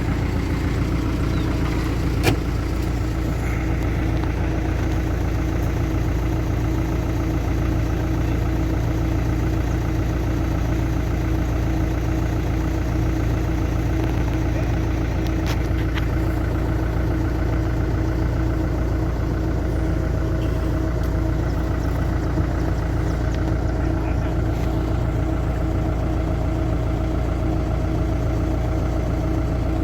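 A vehicle engine idling steadily, with one short knock about two seconds in.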